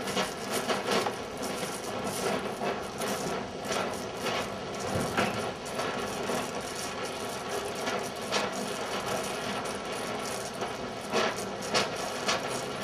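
Cobra oxy-fuel welding torch flame hissing steadily on a molten steel pool, with irregular crackling throughout.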